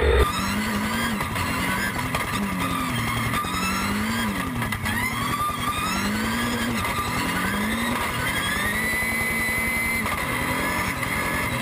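Dacia Duster No Limit hill-climb car's engine revving hard, its pitch climbing again and again as it pulls through the gears and backing off between, heard from a distance.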